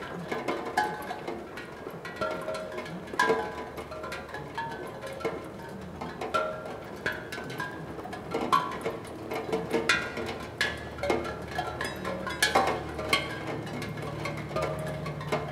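Raindrops striking a steel tongue drum, sounding its tuned tongues as a random scatter of short, ringing metallic notes at different pitches, mixed with the clicks of drops hitting the metal.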